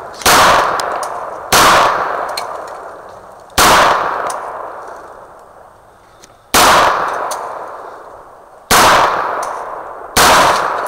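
Handgun firing six shots at an uneven pace, one to three seconds apart, each report followed by a long echo that fades.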